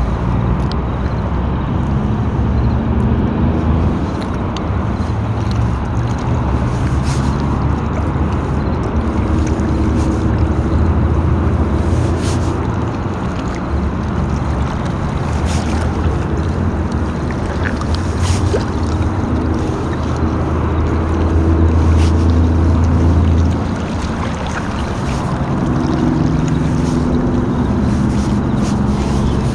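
Boat motor running steadily, a low hum that strengthens about twenty seconds in and drops off abruptly a few seconds later.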